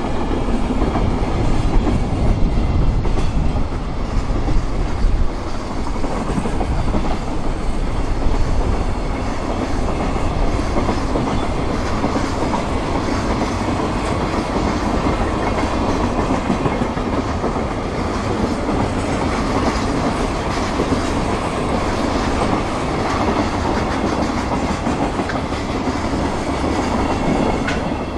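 A long freight train of container wagons rolling past close by, the wheels rumbling and clattering over the rails without a break. It is loudest in the first several seconds and eases off a little near the end as the train draws away.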